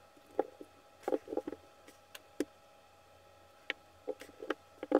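A dozen or so small, sharp clicks and taps, some in quick clusters, from a folding knife and its small parts being handled during reassembly. A faint steady hum runs underneath.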